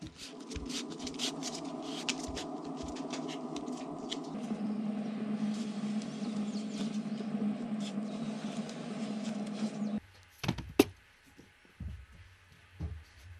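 Kraft paper strips crackling and rustling as they are pasted by hand onto a round aerial firework shell, dense crackles at first, over a steady low hum. After about ten seconds the hum stops and a few sharp taps follow, one of them loud.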